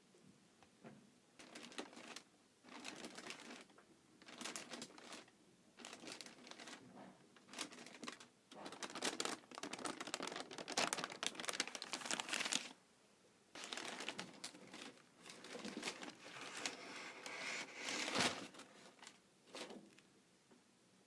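Sneaker-box packing crinkling and rustling as it is handled, in irregular bursts with short pauses. The crinkling is loudest about halfway through and again near the end.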